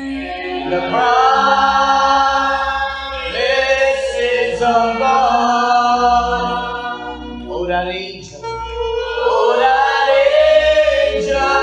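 Vocal music: singing in long, held notes that bend slightly in pitch, with short breaks about three and eight seconds in.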